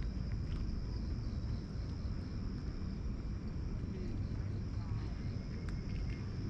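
Outdoor ambience: a steady low rumble with a constant high-pitched insect drone above it.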